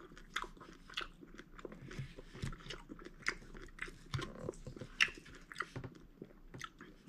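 A person chewing a mouthful of steamed pork bun with its filling of pork, sauce and coleslaw: quiet, irregular wet smacks and clicks of the mouth, one a little louder about five seconds in.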